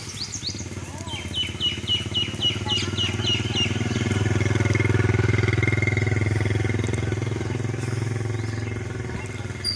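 A vehicle engine running steadily as it passes, growing louder to about halfway and then fading. A bird chirps in a quick series of short high notes during the first few seconds.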